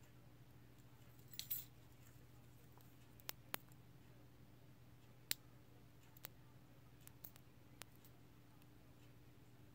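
Faint, scattered small clicks of a thin metal tool and lock pins against a brass pin-tumbler lock cylinder as it is taken apart pin by pin: a short scuff, then about seven sparse sharp clicks, over a faint low hum.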